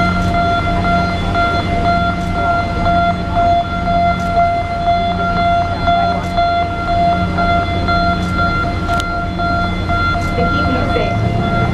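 Steady machinery hum: a constant high-pitched tone over a low rumble, with a lower drone that swells and fades about once a second.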